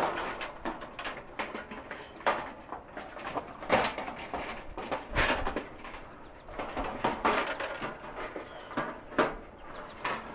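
Irregular metal clicks, knocks and rattles as the sheet-metal lid and hinges of a Coleman camp stove are worked loose by hand.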